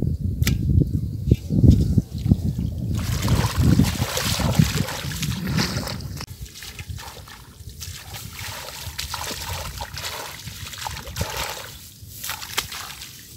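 Water sloshing and splashing as fish are worked in shallow water, louder and busier for the first several seconds, then settling into a lighter trickle and splash.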